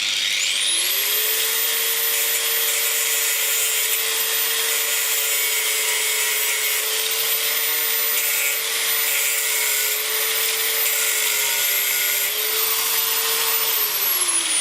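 Angle grinder spinning up, grinding steadily with a high whine, then spinning down near the end, cutting wrench slots into the head of a steel locking wheel nut.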